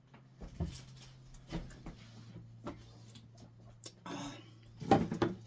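Quiet sips and small clicks of a person drinking juice from a glass jar, over a faint steady hum; a short vocal exclamation near the end is the loudest sound.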